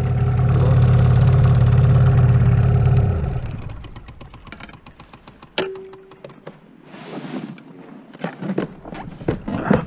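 Boat outboard motor running steadily, then dying away about three seconds in. Afterwards a few light clicks and knocks, with a short hum about halfway through.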